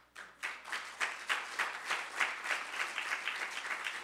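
Audience applauding: a dense run of hand claps that starts suddenly.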